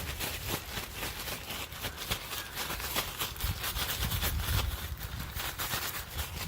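Rapid, crackly rustling of something being shaken by hand to coat a donut, over a low rumble.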